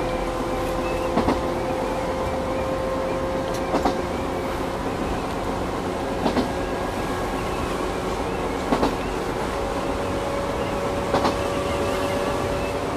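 Chichibu Railway 1000 series (ex-JNR 101 series) electric train running on the line, heard from inside the front car: a steady rumble and whine of motors and wheels. Paired clacks of wheels over rail joints come about every two and a half seconds.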